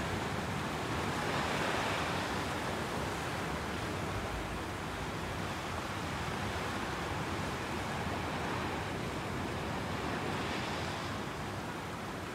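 Sea waves washing onto the shore: a steady rushing wash that swells twice, about two seconds in and again near the end.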